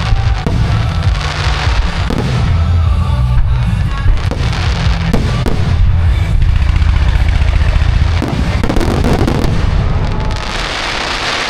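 Fireworks bursting over loud music with a heavy bass line, with repeated bangs throughout and a loud rush of noise near the end.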